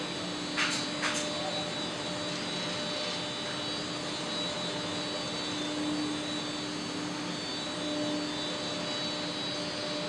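Industrial machinery running steadily: a constant hum with a whining note over a bed of noise. Two short sharp hisses come about half a second apart about a second in.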